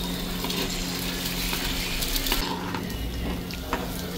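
An egg frying in oil in a small iron pan on a gas burner, sizzling, with the clicks of a steel spatula against the pan. The hiss drops off about two and a half seconds in.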